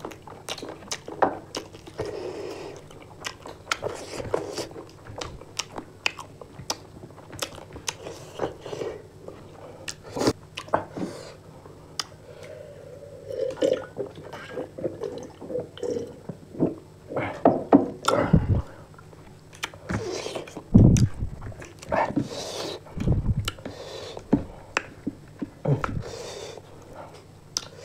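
Close-up eating sounds of two people eating spicy chicken fry and rice by hand: wet chewing, biting, lip-smacking and mouth clicks, with a few heavier thumps past the halfway mark.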